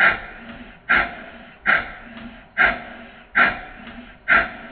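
Exhaust beats of a Stuart 5A model steam engine, slowed to 20% speed: a sharp chuff a little under once a second, each fading before the next. The valve is set for early admission, opening just before top dead centre, which gives a short, sharp exhaust beat.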